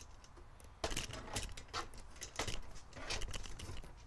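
Things being handled: a run of irregular rustles, knocks and light metallic clinks, starting about a second in.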